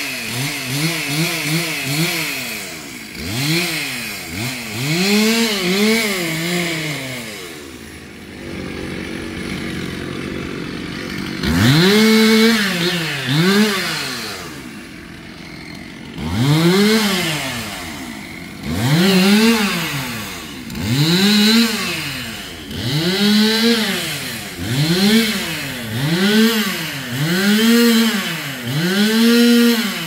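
Gasoline chainsaw cutting into a tree stump, its engine revving up and dropping back over and over. There is a short stretch at lower, steady revs near the middle; after that the revs rise and fall about every two seconds.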